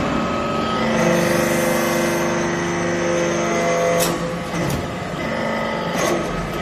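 Hydraulic metal chip baler running: a steady pitched whine under load from about one to four seconds in, then a sharp clack about four seconds in and mechanical clatter.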